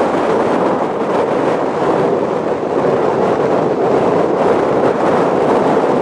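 Storm surf breaking along a sandy shore, a loud steady wash of noise, with strong wind blowing across the microphone.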